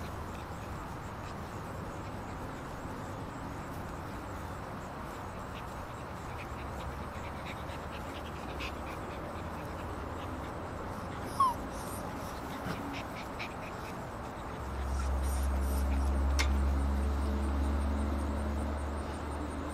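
Six-week-old Alaskan Malamute puppies playing, with a few faint squeaks and one short, sharp rising puppy yelp about halfway through. A low rumble swells in the last few seconds.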